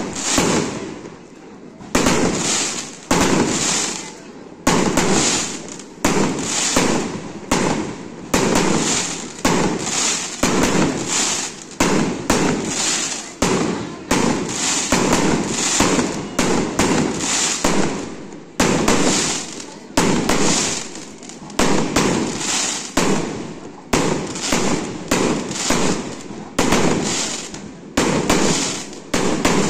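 Firecrackers going off in a long, irregular run, roughly one to two sharp bangs a second, each dying away quickly before the next.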